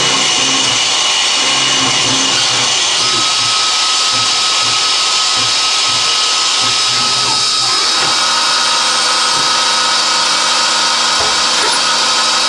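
Manurhin K'MX Swing 1026 Swiss-type CNC lathe machining a part: a steady, dense machining noise with several fixed whining tones from spindle and tools. A new tone joins about three seconds in.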